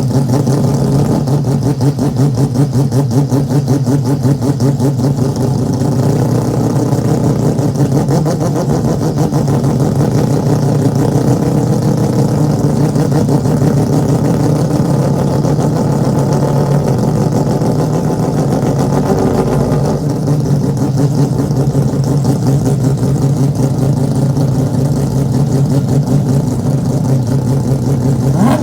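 Mazda four-rotor rotary engine running at a steady speed, with a fast, pulsing exhaust note.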